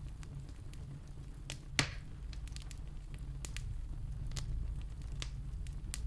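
Wood fire crackling: scattered sharp pops, one louder pop about two seconds in, over a low steady rumble.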